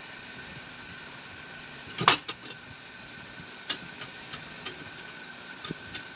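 Sharp clicks and knocks from hand work on a motorcycle rear monoshock, the loudest about two seconds in, then several lighter ones, over a steady hum with a faint whine.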